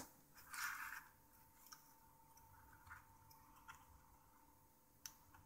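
Faint handling sounds from a spudger and fingers working the ribbon-cable clips on a BlackBerry Storm 9530's main board. There is a sharp click at the start and a short scraping rustle about half a second in. Light ticks follow, and another click comes near the end.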